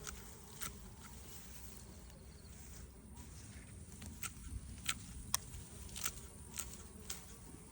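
Faint insect buzzing, such as bees at lavender, over a steady low rumble, with a dozen or so short sharp clicks scattered through it.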